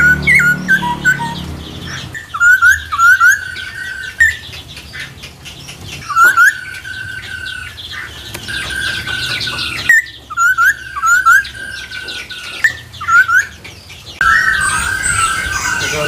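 Caged songbirds chirping and calling in short repeated upward-hooked notes, with a long held whistle in the middle. The calls change to a denser, different chatter near the end.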